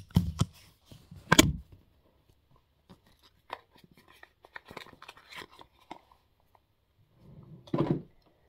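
A small cardboard box being handled: two loud knocks in the first second and a half, then light clicks and paper-like rustles as the box is turned and closed, and another dull thump near the end.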